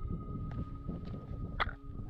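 Footsteps on a mountain trail: irregular steps over a steady low rumble, with one sharper step or knock about one and a half seconds in.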